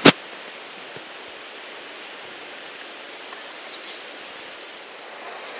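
Steady rush of a flowing river, an even hiss with no distinct events, opening with a single sharp click.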